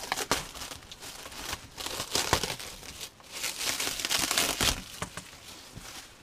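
Clear plastic wrapping crinkling as it is handled and pulled off a championship belt. It comes in irregular bursts, loudest about two seconds in and again around four seconds in.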